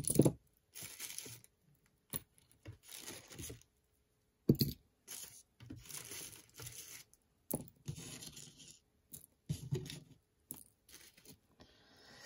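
A small plastic bag crinkling and rustling in bursts as costume jewelry is pulled out of it, with a few sharp knocks of metal pieces being set down on the tabletop.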